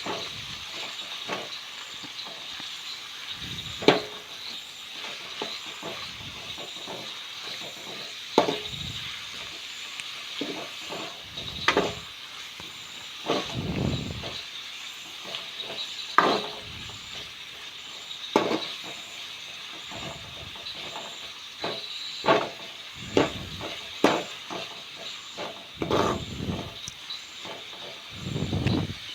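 Chopped tomato, ginger and onion frying in hot oil in a pan, with a steady sizzle. A stirring utensil scrapes and knocks against the pan every second or two as the mixture is stirred.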